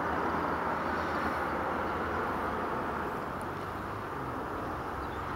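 Steady rushing of a river flowing over shingle, with a faint low hum underneath.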